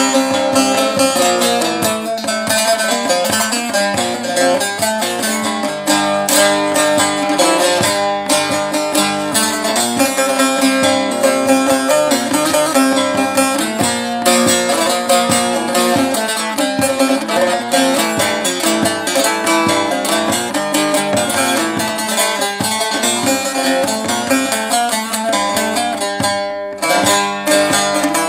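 Instrumental introduction of a Turkish folk song (türkü), led by a plucked bağlama playing a melody over the accompaniment, with a brief break near the end.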